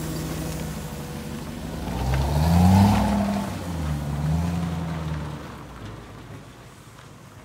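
Lexus 3UZ-FE 4.3-litre V8 idling steadily, then revved twice. The first rev is bigger, rising and falling about two seconds in, and a smaller rev follows. After that the engine sound fades away near the end.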